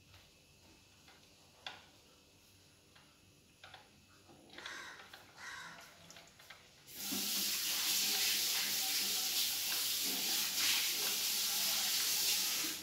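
Running water: a steady rushing stream that starts abruptly about seven seconds in and cuts off at the end, after a few faint clicks and knocks.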